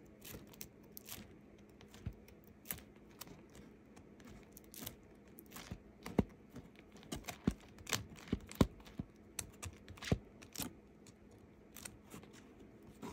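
Comic books being flipped through by hand: a run of irregular light clicks and taps that comes thicker about six to eleven seconds in.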